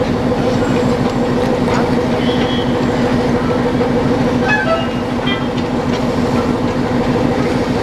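Steady hum of an idling YDM-4 metre-gauge diesel locomotive, mixed with the running noise of an X-class steam locomotive rolling slowly along the track. A few brief high chirps sound over it.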